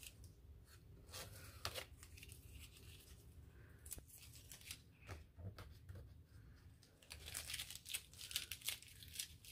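Strip of dotted paper tape being peeled off the edge of a coloring-book page: faint tearing and rustling, with scattered small clicks, busier near the end.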